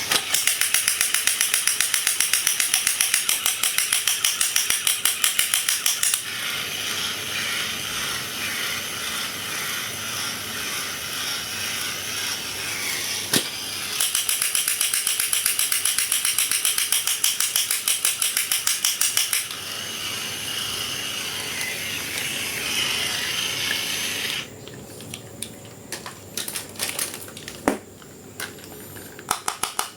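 Rapid mechanical rattling, many even strokes a second, in two long stretches, with a steadier grinding noise between them and scattered clicks near the end.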